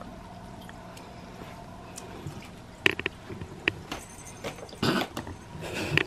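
Quiet room tone with a low steady hum, then a few faint clicks and a short rustle from about three seconds in.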